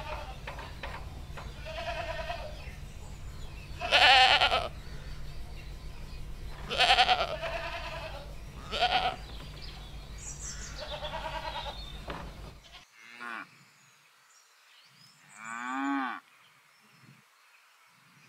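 Goats bleating repeatedly, wavering calls every two or three seconds, the loudest about 4 and 7 seconds in. After an abrupt change in the background at about 13 seconds, cattle moo a few times, with one longer moo about three seconds before the end.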